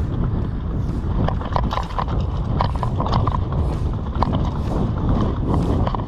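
Mountain bike rolling over a rough dirt trail: a steady low rumble with frequent short clattering knocks and rattles from the bike jolting over roots and rocks.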